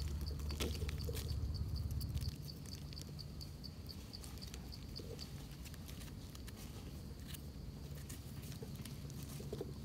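Knife blade scraping soil off the base of a freshly picked wild Amanita mushroom, in scattered short scratches and clicks. A regular high ticking, about four a second, runs for the first two seconds or so, then stops.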